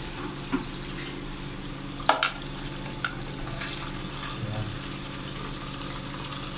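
Tap water running steadily into a plastic basin in a sink, with a few small knocks and clicks from handling, the loudest about two seconds in.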